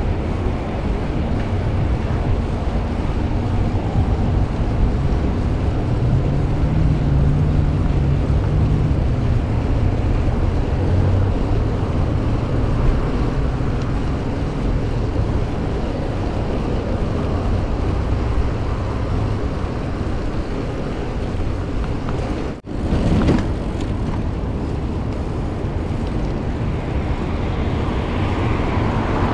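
Wind buffeting a chest-mounted GoPro Hero 9's microphone on a moving bicycle, a steady low rush. It briefly cuts out about three quarters of the way through.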